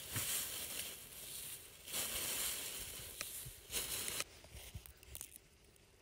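Dry kindling twigs rustling and crackling as they are handled and piled, in long stretches, then a few small sharp clicks in the last two seconds.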